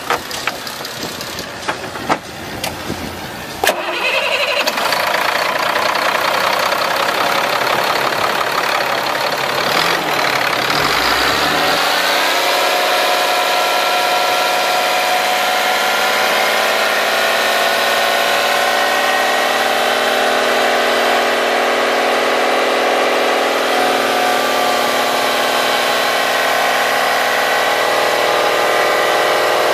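Caterpillar C7 inline-six diesel engine starting with a few clicks, catching about four seconds in, rising in pitch around ten seconds in, then settling into a steady idle.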